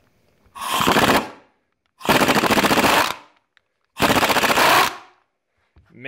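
Ingersoll Rand 2235TiMAX half-inch-drive air impact wrench triggered in three short bursts, each a rapid hammering rattle. It is fed through newly fitted high-flow V-style quick-connect fittings, and is hitting much harder on them.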